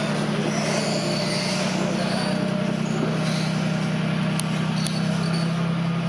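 A steady low mechanical drone, with a faint wash of noise above it.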